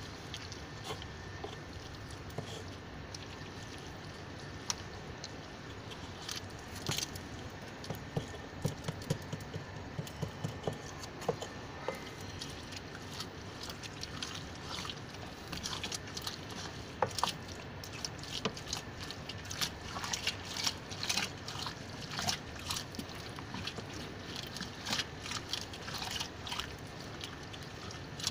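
Wet, sloppy compost being stirred in a plastic drum: irregular squelching and sloshing with short wet clicks, coming more thickly after the first several seconds.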